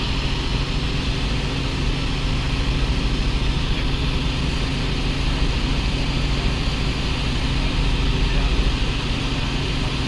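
Light helicopter in level cruise heard from inside the cabin: the engine and main rotor make a loud, steady hum with a rushing noise over it, even throughout.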